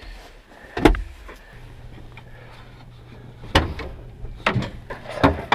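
Sharp clicks and clunks of car fittings being handled in an old car's cabin: one knock about a second in, then a cluster of clicks near the end, over a steady low hum that starts about a second and a half in.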